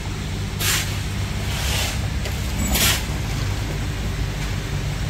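A steady low mechanical hum from a running motor or engine, with three short hisses in the first three seconds.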